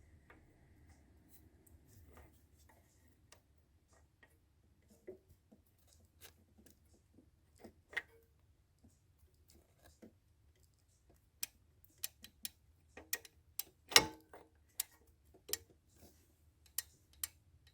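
Scattered light metal clicks and taps of a twin-pin pulley locking tool being fitted to an engine's timing belt pulley, coming more often in the last third, with one louder knock.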